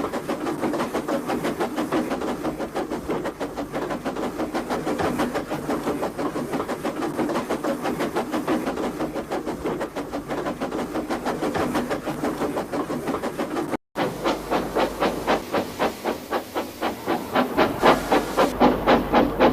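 Steam locomotive exhaust chuffing in a fast, even rhythm. After a brief break about 14 seconds in, it resumes with slower, more distinct chuffs that grow louder toward the end.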